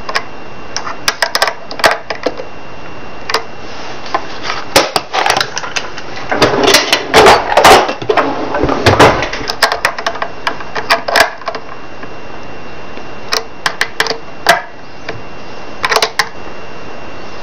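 Irregular metal clicks, taps and rattles as the bushing nuts of new Fender tuners are tightened down on a guitar headstock with a nut driver. There is a louder stretch of scraping and handling noise about seven to nine seconds in.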